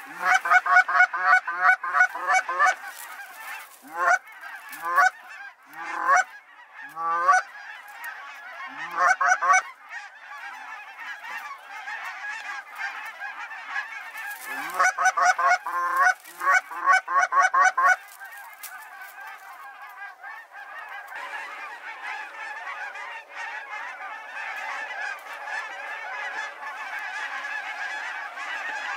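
Geese honking: loud, close calls come in quick runs at the start and again about two thirds of the way through, with single honks a second or so apart between them. From about 18 s on, a large flock overhead keeps up a steady, dense clamour of overlapping calls.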